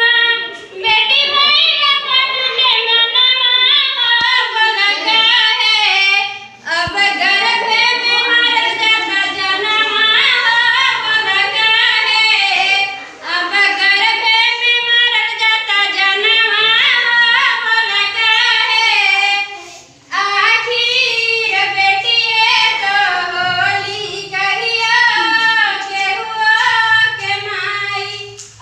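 A girl singing a song solo in long melodic phrases, with three short breaths between phrases.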